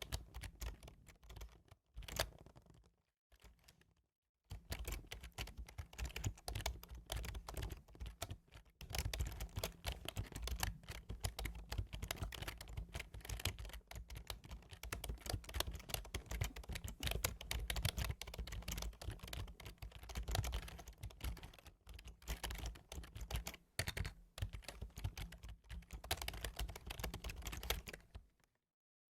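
Computer keyboard being typed on: scattered key presses at first, then fast, continuous typing that stops shortly before the end.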